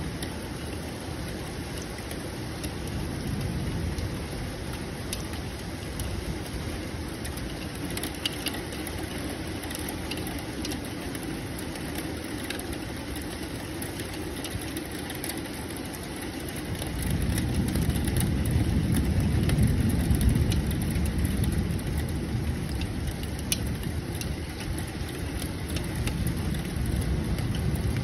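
Steady rain hiss with scattered drip clicks. A low rumble of thunder builds a little after halfway, swells for a few seconds and slowly fades.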